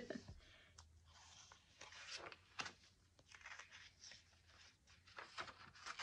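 Faint rustling and sliding of paper as the magazine-paper and card pages of a handmade junk journal are turned and smoothed by hand, with a few soft ticks.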